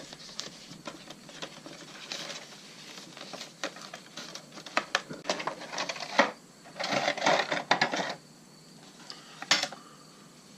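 Hands opening a small retail product box: packaging clicks, scrapes and rustles in irregular handling noises, with a longer, louder rustle about seven seconds in.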